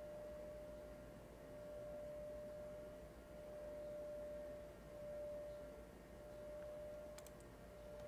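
A faint steady pure tone, like a test tone, holding one pitch without a break over a low hum, with a single brief click about seven seconds in.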